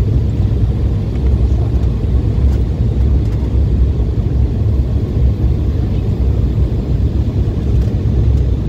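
Steady low rumble inside the passenger cabin of an Embraer 170 airliner descending to land: engine and airflow noise with no changes or distinct events.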